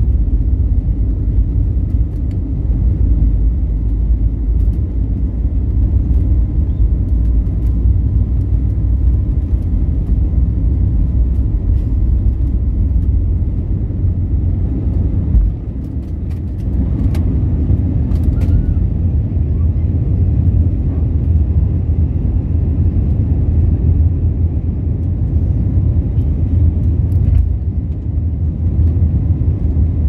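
Airbus A321neo's engines at takeoff thrust with runway rumble, heard inside the cabin: a loud, steady rumble. Around halfway through, the deepest rumble briefly dips with a sharp tick as the aircraft rotates and lifts off, and the engine noise carries on into the climb.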